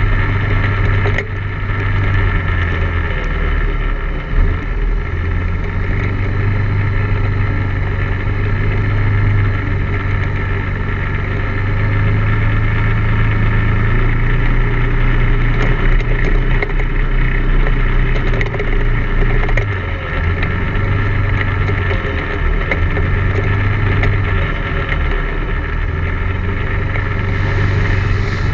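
ATV engine running steadily under throttle on a rough dirt trail, its note dipping briefly a couple of times as the throttle eases. Near the end a hiss of mud and water spraying up as it rolls into a wet, muddy stretch.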